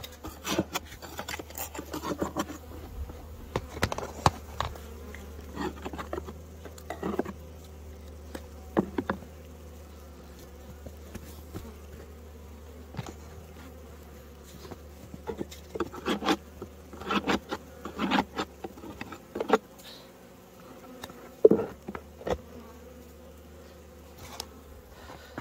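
Honeybees buzzing at a hive with a steady hum, the colony alive after a snowstorm. Irregular knocks and scrapes run through it, the loudest a sharp knock near the end.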